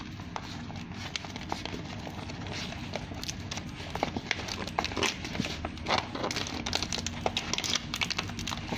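Paper backing and transfer tape of a plotter-cut vinyl decal crinkling and crackling as they are handled and peeled apart by hand, the sharp crackles coming thicker and louder from about three seconds in, over a steady low hum.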